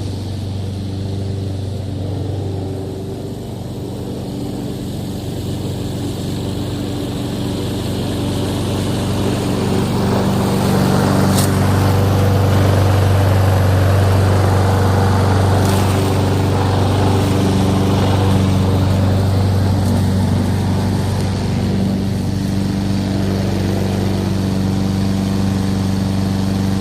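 Honda GCV170 single-cylinder lawn mower engine running steadily, getting louder about ten seconds in and easing slightly later.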